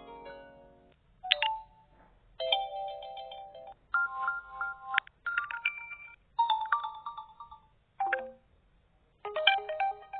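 A run of short electronic smartphone ringtone and notification melodies played one after another. There are about eight chime-like phrases, each a second or so long, with brief gaps between them.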